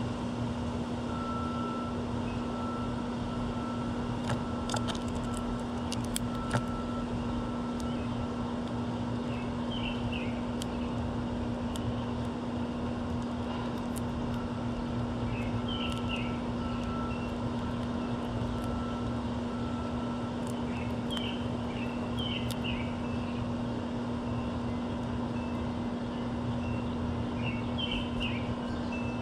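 Steady low mechanical hum and rumble of urban background noise, with small birds giving short clusters of high chirps every five or six seconds.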